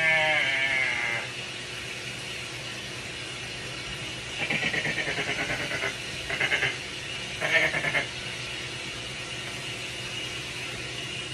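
Binturong calling: a drawn-out pitched call trails off in the first second, then three bouts of rapid pulsed calls come about four to eight seconds in, the first lasting about a second and a half and the other two shorter.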